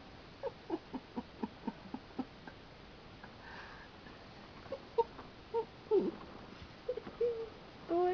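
A person stifling laughter: quick breathy snickers at about four a second, then a few short squeaky giggles and snorts through the nose.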